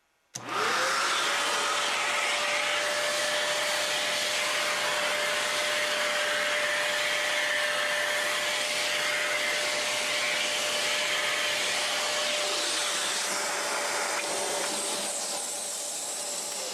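Kenmore Elite 31150 upright vacuum cleaner switched on about half a second in, its motor whine rising quickly to a steady high pitch over the rush of airflow. It is switched off at the very end, and the whine starts to fall as the motor winds down.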